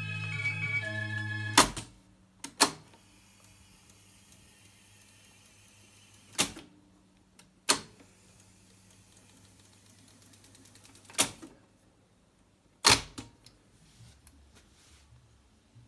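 Akai GX-265D reel-to-reel tape deck: organ music playing back from tape stops about a second and a half in, followed by a series of six loud mechanical clunks from the transport as its mode buttons are pressed, with a faint hum between them.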